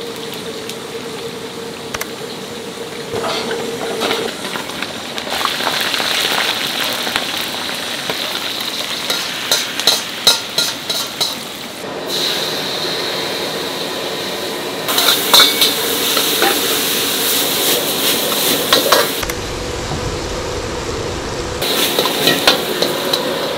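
Food sizzling and frying in a hot pan, with metal utensils clattering against the cookware in short runs of sharp clinks. The sizzle changes abruptly several times.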